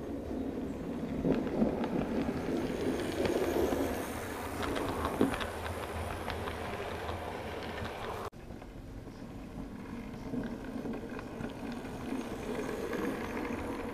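Model train running on layout track: a steady mechanical rumble of wheels and motor with irregular small clicks. The sound cuts off abruptly about eight seconds in and then carries on a little quieter.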